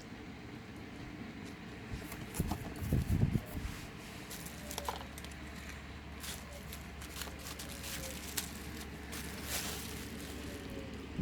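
Handling noises: scattered small clicks and rustles over a steady hiss, with a few low thumps about three seconds in.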